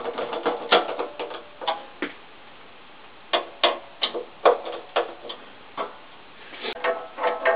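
Background music made of sparse plucked or percussive notes. The notes are dense for the first two seconds, pause briefly, then come back one at a time about every half second.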